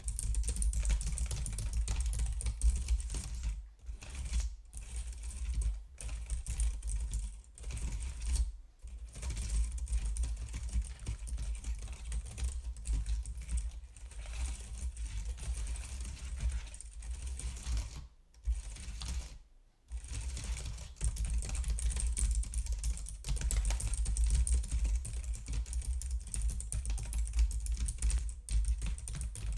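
Typing on a computer keyboard: a fast, dense run of key clicks with a few short pauses.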